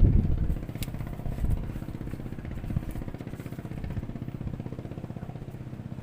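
A small engine running steadily at an even speed, louder for the first half second and then settling.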